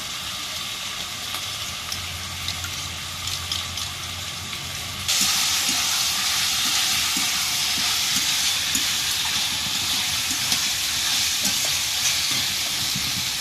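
Chicken pieces and potatoes frying in hot oil in a pan, a steady sizzle that gets suddenly louder about five seconds in.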